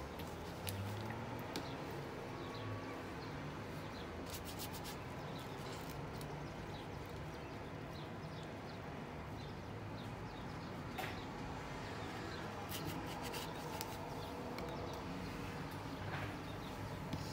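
A paintbrush rubbing and dabbing on watercolour paper, with scattered light clicks and taps, over a steady background hiss.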